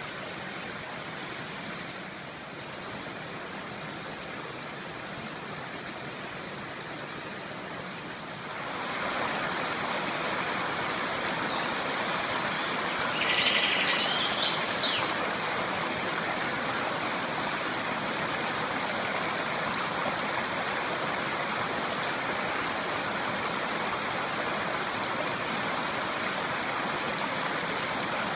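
A river flowing with a steady rush of water, which grows louder about a third of the way in. Near the middle, a bird chirps briefly several times.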